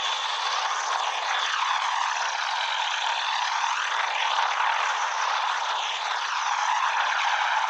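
Helicopter in flight: a steady, even rushing noise with slow whooshing sweeps running through it.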